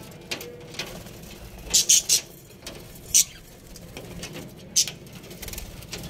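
Small parrots in an aviary giving sharp, high chirps: a quick group of three about two seconds in, then single chirps about a second later and again near five seconds.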